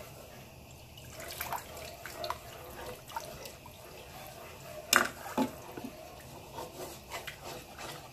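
Wooden spoon stirring a thick milk-and-roux sauce in a frying pan, breaking up lumps: wet sloshing and scraping, with scattered light clicks and two sharper knocks of the spoon on the pan about five seconds in.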